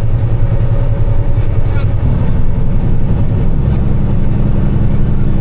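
Diesel engine of a Kenworth W900 semi truck pulling away from a standstill in traffic, a steady low drone whose pitch steps once about two seconds in and again about three and a half seconds in.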